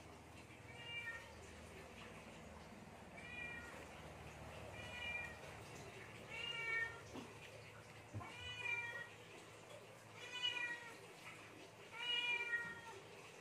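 A cat meowing about seven times, one short call every one and a half to two seconds, the later calls louder.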